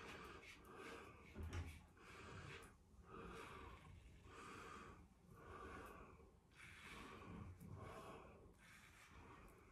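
Faint, short scraping strokes of a vintage Gillette Junior Aristocrat safety razor cutting day-old stubble through shaving lather on the head, about one stroke a second.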